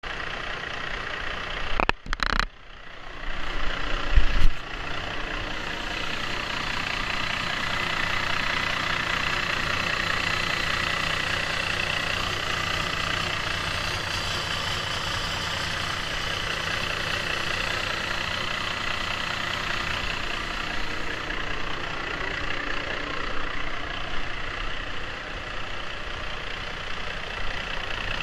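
Cummins 450 hp truck diesel engine running steadily, an engine graded as a weak runner. Loud, uneven noises in the first few seconds before it settles into an even run.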